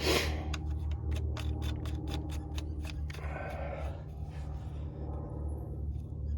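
Ratchet wrench clicking in a rapid run of short strokes for about three seconds as a battery cable terminal nut is tightened, then a brief scrape, over a steady low hum.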